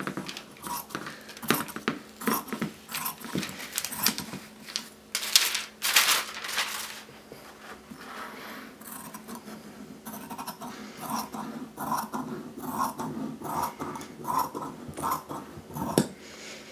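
Large fabric shears cutting through organza: crisp, crunchy snips, falling into an even run of about two a second in the second half, mixed with the rustle of the sheer fabric and stabilizer being handled.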